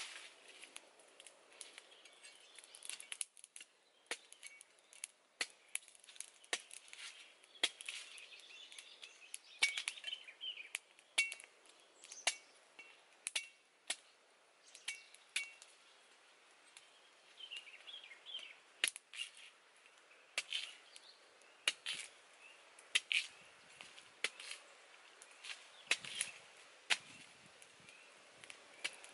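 A knife blade cutting and chopping into a green coconut's husk, in irregular sharp strikes one or two a second.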